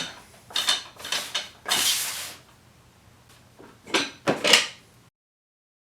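Wooden puzzle box being handled while locked: a few bursts of wooden knocking and sliding, with the loose locking bars inside clicking against the wood. The sound cuts off abruptly about five seconds in.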